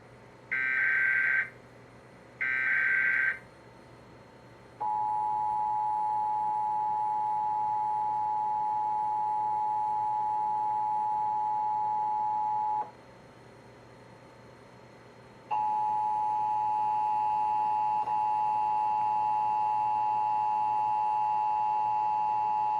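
Emergency Alert System test tones. Two short bursts of digital SAME header data come first. Then the steady two-tone attention signal sounds for about eight seconds, and after a short pause a fuller chord of steady tones starts about 15 seconds in.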